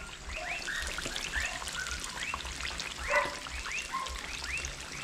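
Bangamary fish deep-frying in a pan of oil, a steady fine sizzle with tiny crackles. Over it, a fast run of short chirping calls from an animal, about three a second, each rising and then falling, with lower bubbling notes between them.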